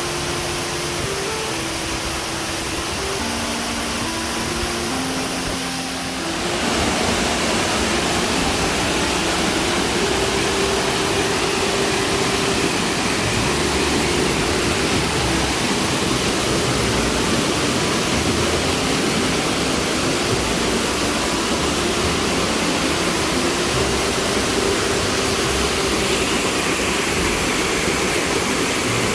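Prut waterfall: a loud, steady rush of falling water that grows louder about six seconds in.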